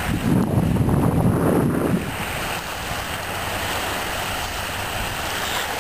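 Wind buffeting the microphone with a loud low rumble for about two seconds at the start, then a steady wash of wind and small waves lapping at the shoreline.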